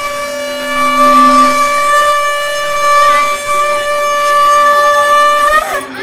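Conch shell (shankh) blown in one long steady note, sounded for the aarti; the note wavers and breaks off just before the end.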